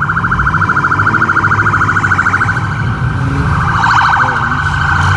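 Police car siren sounding a fast-pulsing warble, changing its pattern near the end, over the low steady running of car engines.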